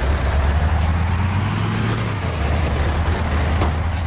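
A motor vehicle's engine running steadily with a low rumble under an even wash of noise, like a truck's sound.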